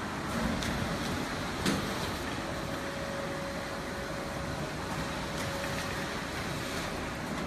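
Semi-automatic corrugated box folder-gluer running: a steady mechanical hum with a faint steady whine, and a few short clicks, the sharpest about a second and a half in.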